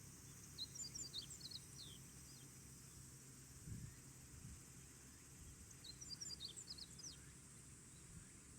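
A small bird singing two short phrases of quick, high chirps, one about a second in and another near six seconds, over a faint steady high hiss.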